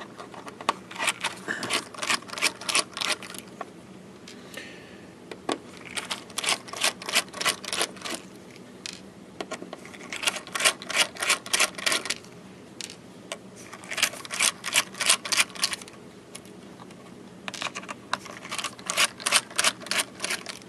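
Ratcheting screwdriver clicking in five bursts of rapid clicks, each about two seconds long, as screws are backed out of a hard drive's case.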